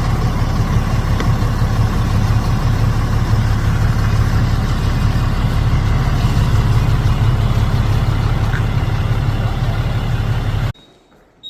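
Steady, loud rumble of an idling engine, which cuts off abruptly near the end.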